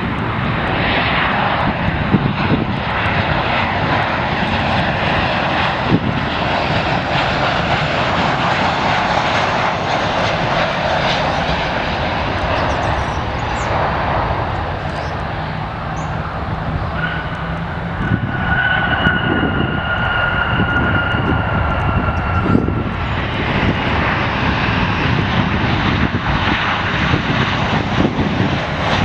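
Jet engines of Boeing 737 airliners landing and rolling out: a continuous rushing noise. It eases off near the middle, where a high whine holds for about five seconds, sinking slightly in pitch, before the rushing noise returns.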